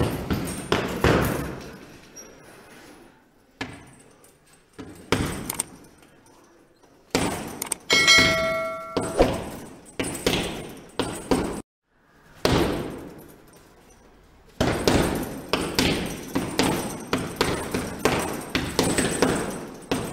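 Fight-scene sound effects: rapid runs of punch impacts in bursts, broken by short pauses. A ringing, glassy crash comes about eight seconds in, and a long dense run of hits closes the stretch.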